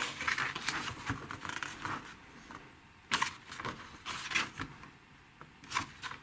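Paper pages of a hardcover mediabook booklet being turned by hand: quick rustles and flaps of the pages, busy at first, then single page turns about three, four and six seconds in.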